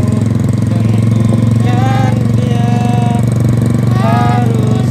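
An engine running steadily with a rapid, even pulse. Brief voices call out over it a few times.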